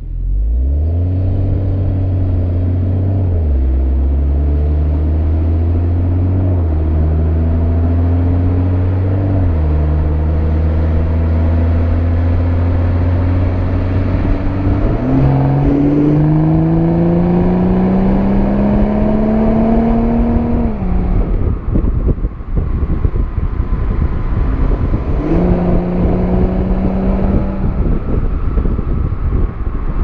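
Exhaust of a BMW M340i's 3.0-litre turbocharged inline-six, heard right at the tailpipe in Comfort mode, while the car accelerates. The engine note climbs and drops back at three upshifts of the automatic in the first ten seconds, then climbs in one long pull. About two-thirds through the throttle is lifted and rough wind and road noise takes over, before a short pull near the end.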